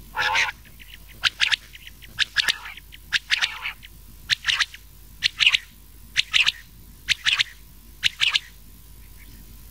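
Quail calls, a mix of rain quail and common quail, made for luring quail when hunting. Short, sharp clusters of two or three high notes repeat about once a second, then pause near the end.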